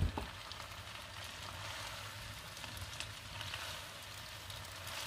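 Pizzoccheri and vegetables sizzling in melted butter in a wide frying pan, a steady crackling hiss with faint scattered ticks as a wooden spoon stirs in the grated parmesan.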